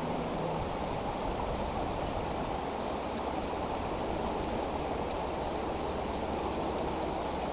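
Steady rushing noise, strongest in the low range, with no separate events, and a faint steady high whine above it.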